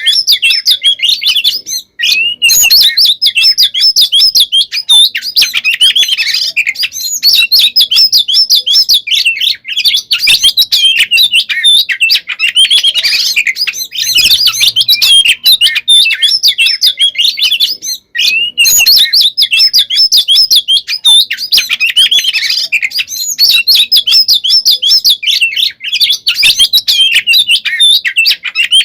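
Oriental magpie-robin (kacer) singing loudly in its fighting song: a fast, unbroken stream of high chirps, trills and whistled phrases. It breaks off briefly about two seconds in and again near eighteen seconds.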